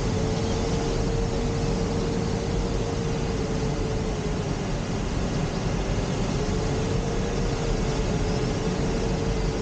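Steady rush of airflow over a glider's canopy in engineless flight, heard inside the cockpit. A faint steady tone sits underneath and drifts slightly in pitch.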